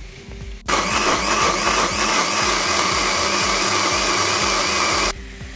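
Electric blender (mixer-grinder) running at full speed, grinding onion, tomato and green chili into a masala paste. It starts suddenly just under a second in and cuts off abruptly about four seconds later.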